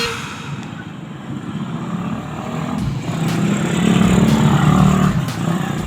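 A passing road vehicle: engine and tyre sound that swells to its loudest about four to five seconds in, then fades. A few light clicks and knocks are heard over it.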